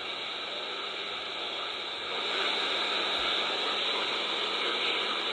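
Steady shortwave static hiss from the Eton Elite Satellit's speaker on its whip antenna, tuned to a weak AM station at 15770 kHz in sync mode with 4 kHz bandwidth, the station buried in noise and unlistenable. A faint steady hum sits underneath, and the hiss grows a little louder about two seconds in.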